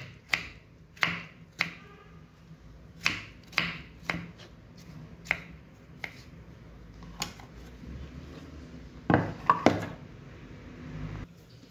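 Kitchen knife dicing a tomato on a wooden cutting board: irregular sharp knocks of the blade on the wood, with a few louder knocks close together near the end.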